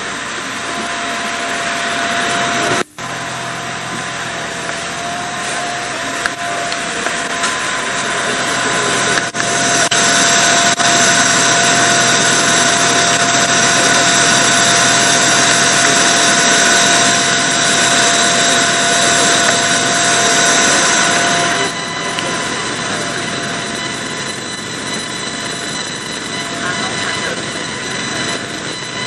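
Diesel multiple unit running steadily at the platform, a steady engine noise with a high whine. It grows louder a little before the middle and eases off about two-thirds of the way through. The sound cuts out for an instant about three seconds in.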